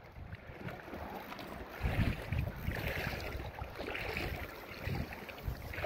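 Wind buffeting the microphone in uneven gusts over the sound of river water lapping around a drift boat.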